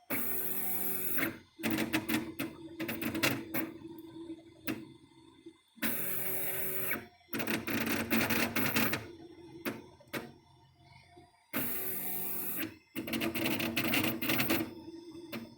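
Stepper-driven motion of a home-built CoreXY 3D printer (a converted Anet A8 on TMC2209 drivers) making an awful noise as it runs. It goes in a cycle about every six seconds: a steady, even stretch of about a second, then two to three seconds of rapid rattling clicks, then a quieter gap.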